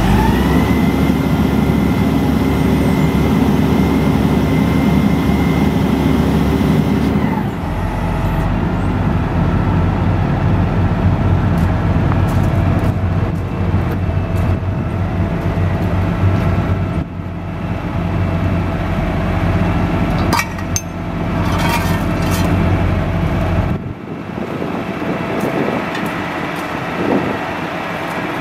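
Diesel engine of a Peterbilt 340 crane truck running at raised speed with a high whine for about seven seconds, then dropping back to a steady idle. A few short clicks and knocks come over the idle in the second half.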